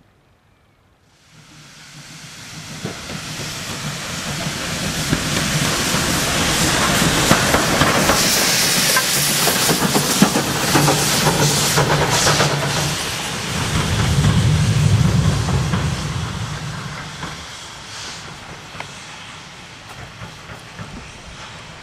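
LB&SCR E4 class 0-6-2 tank steam locomotive B473 passing close by with its cylinder drain cocks open: a loud hiss of escaping steam over the clank and clicking of wheels and motion on the rails. It grows quieter toward the end.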